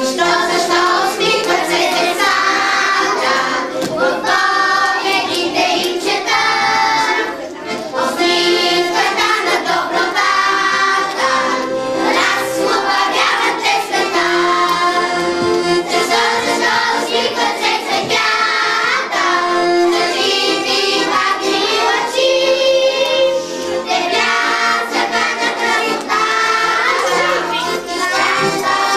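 A group of young children singing a song in unison, accompanied by an accordion.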